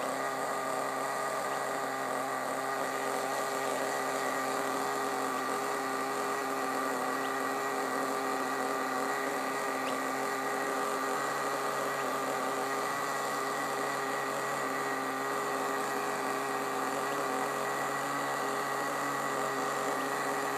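Small glow-fuel nitro engine of an HSP Warhead 1:10 RC buggy idling, a steady high buzz with no change in revs.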